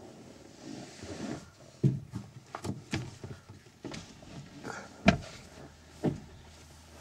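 Irregular knocks and thumps from someone moving through a lorry's living area into the cab with a handheld camera: footsteps on the floor and bumps from handling the camera. The loudest knock comes about five seconds in.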